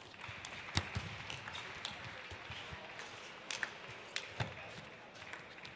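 Table tennis ball clicking off bats and the table in a rally, a sharp tick about every half second, then a few scattered clicks later on. A steady hiss of hall noise lies underneath.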